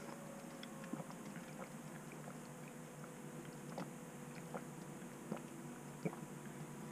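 Water being drunk through a drinking straw from a jug: faint, irregular little clicks of sucking and swallowing over a faint steady hum.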